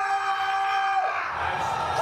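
Battle crowd cheering and yelling, with a long held yell that stops about a second in.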